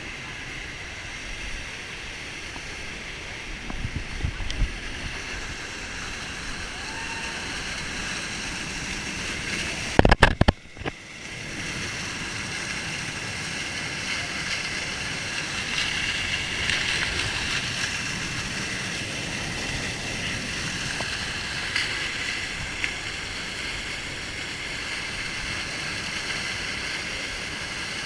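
Steady rushing of a waterfall. About ten seconds in there is a loud, brief burst of low knocks and rumble, with a few smaller knocks around four seconds in.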